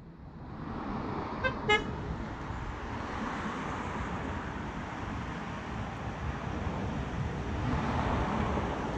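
Battery-electric 7¼-inch gauge miniature locomotive giving two short horn toots about a second and a half in, then running towards the listener with a steady rumble of wheels on rails that grows louder.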